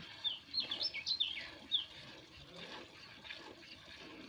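Small birds chirping: a quick run of short, sweeping chirps in the first two seconds, then only faint background.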